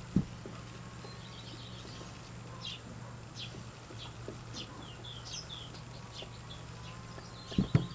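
Small birds chirping in short, high chirps, several a second from about two and a half seconds in, over a low steady hum. A dull thump right at the start and a louder double thump near the end.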